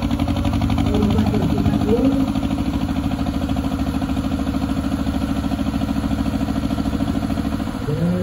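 Engine of a historic working narrowboat running slowly under way, with a steady, even beat.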